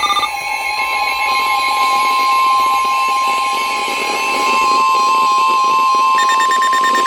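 NOAA Weather Radio 1050 Hz warning alarm tone: one loud, steady tone that starts a fraction of a second in and holds. It signals that a severe thunderstorm warning is about to be read. Fainter changing tones sound underneath it.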